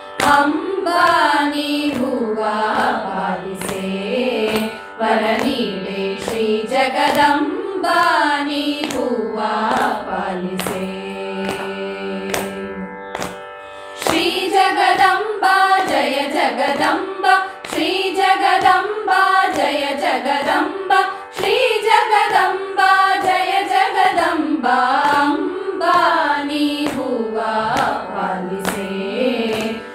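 A group of women singing a Kannada devotional song (devaranama) in unison in raga Brindavani Sarang, over a steady drone and a light regular beat. The singing breaks off briefly about 13 seconds in and picks up again a second later.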